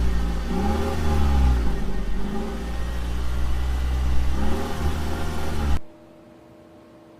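A car engine revving up and back down several times, cut off abruptly about six seconds in, leaving a faint steady hum.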